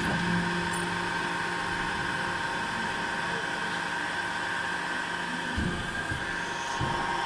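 YAN28 hydraulic deep-drawing press running, its hydraulic system giving a steady whine and hum as the slide travels back up after a forming stroke. The low hum stops about five and a half seconds in, followed by a few dull knocks.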